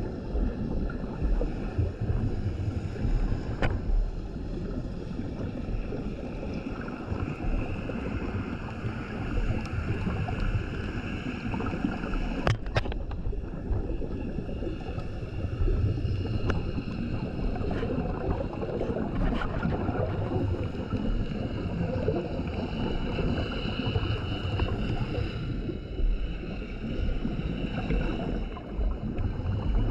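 Scuba diver breathing through a regulator underwater: exhaled bubbles rumble and gurgle, swelling and fading every several seconds, with a few sharp clicks.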